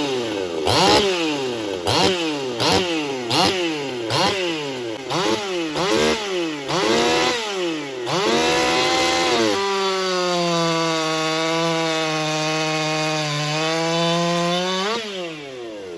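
Two-stroke chainsaw being blipped rhythmically, its pitch rising and falling about a dozen times in a wailing 'crybaby' pattern, then held at high revs for about five seconds before dropping back near the end.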